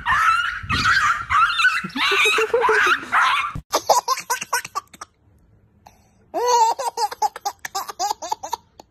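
A dog yelps and whimpers for the first few seconds. Then a baby laughs in quick, repeated bursts, with a short pause in the middle.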